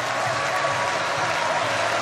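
Spectators at a speed-skating oval clapping and cheering steadily, with a wavering held tone over the crowd noise.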